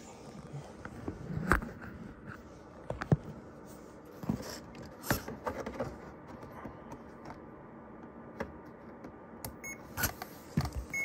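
Scattered clicks, knocks and light rattles of handling as the RC car is reached for to be switched back on, with a short electronic beep near the end.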